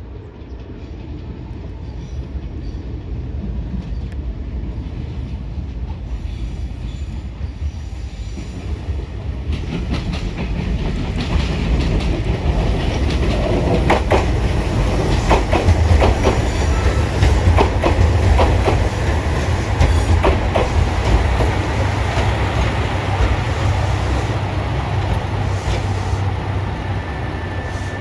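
JR Shikoku 2700 series diesel railcar train arriving at a station. Its engine rumble and wheel noise grow louder as it approaches, with a run of clicks from the wheels over rail joints and points in the middle. A thin high squeal comes near the end as it slows alongside.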